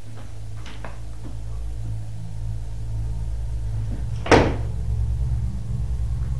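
One sharp knock about four seconds in, with a short ringing tail, over a steady low hum; a few faint ticks come in the first second.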